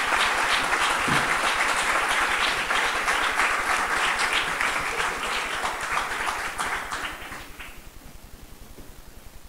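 Audience applauding, dying away about seven and a half seconds in.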